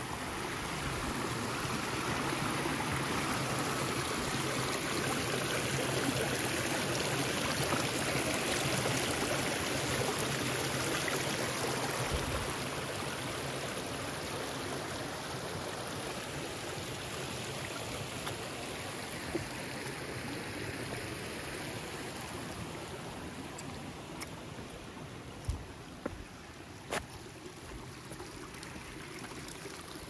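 Small rocky woodland creek running and trickling over stones, louder for the first dozen seconds and then somewhat quieter. A few sharp clicks come in the last third.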